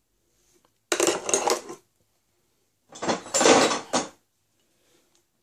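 Old steel hand tools clattering and clinking against each other as they are handled, in two bursts about two seconds apart.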